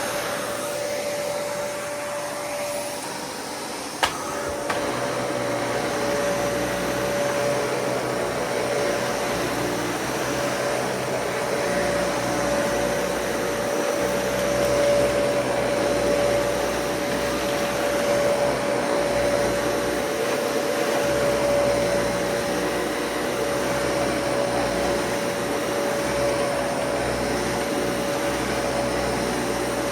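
Dyson Cinetic Big Ball upright vacuum cleaner running steadily while vacuuming, its motor giving a constant whine over the rush of airflow. A single sharp knock about four seconds in.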